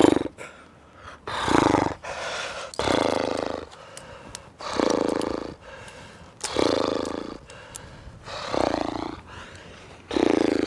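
A rock climber's loud grunts of effort, about seven in a row, one every one and a half to two seconds, each a short forceful breath-out with voice as he strains through hard moves.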